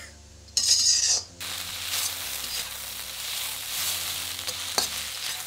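Sliced onions sizzling in hot oil in a wok as a metal spatula stirs and scrapes them round the pan, frying until soft and translucent. The sizzle starts about half a second in, bright at first, then settles to a steady hiss, with one sharp click near the end.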